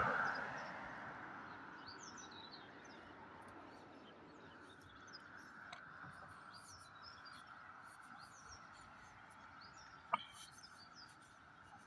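Songbirds singing faintly, many short chirps overlapping throughout. A single sharp click about ten seconds in.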